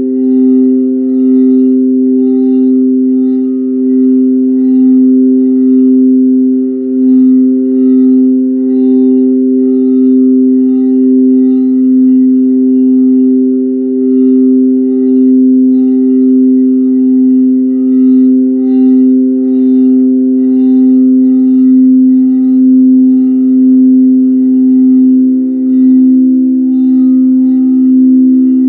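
Tibetan singing bowl played by circling its rim, giving one continuous ringing drone with a slow wavering pulse and shimmering overtones above. Near the end a second, slightly higher tone swells in.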